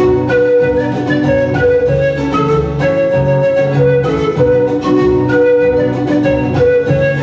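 Andean panpipes (zampoña) playing a melody of held, breathy notes over an acoustic guitar strummed in a steady rhythm.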